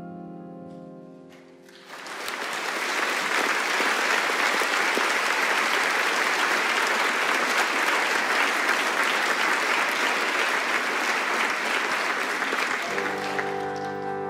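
The orchestra's last chord dies away, then a concert audience applauds steadily for about eleven seconds. Near the end the symphony orchestra comes in with a sustained chord to open the next piece.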